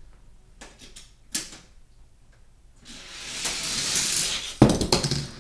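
Die-cast toy car rolling down an orange plastic Hot Wheels track with a building rattling rumble, then landing with a sharp clatter about four and a half seconds in and bouncing a few times. A couple of small clicks come before the run.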